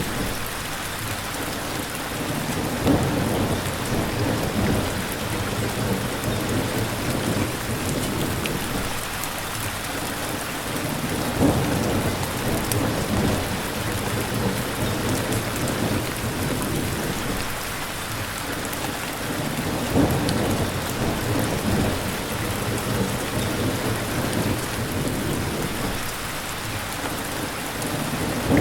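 Steady rain falling, an even hiss, with low rumbles that swell up suddenly about three times and then die away.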